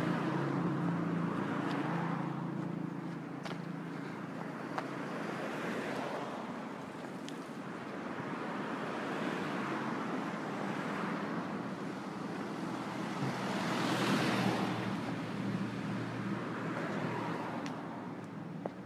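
Passing road traffic: a vehicle's engine hum fades away over the first few seconds, then the rushing noise of passing cars swells and fades, loudest about fourteen seconds in.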